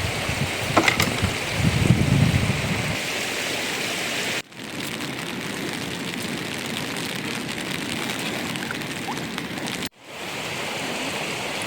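Steady rush of rain and running water, with some low thuds in the first few seconds. The sound drops out abruptly twice, about four and ten seconds in, and picks up again.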